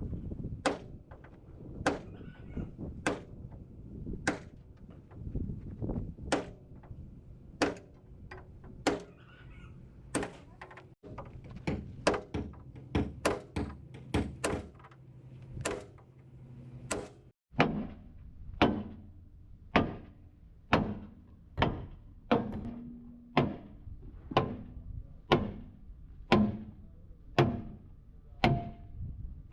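Hammer striking steel again and again, irregular at first and then settling into a steady beat of about one blow every three-quarters of a second from just past the middle, over a low steady hum.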